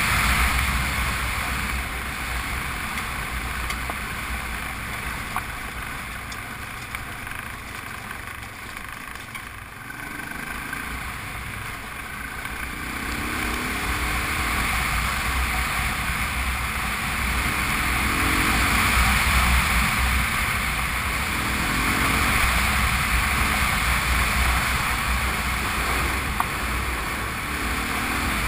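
Honda Transalp's V-twin engine running at speed under a rush of wind and tyre noise on a gravel track, with a steady low rumble throughout. The whole sound drops back about eight to ten seconds in, then builds again, and the engine note rises several times in the second half as the rider opens the throttle.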